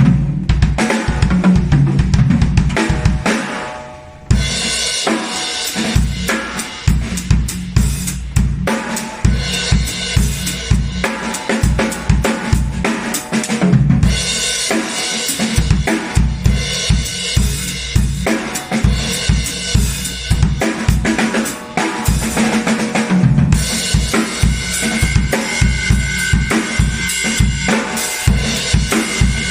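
Cerino Game On Series entry-level acoustic drum kit played as a continuous beat: bass drum, snare and cymbals, with a short break about four seconds in before the groove picks up again.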